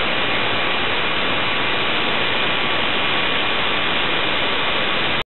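FM radio static: a steady hiss between stations while the car radio is tuned down the dial. It cuts off abruptly about five seconds in.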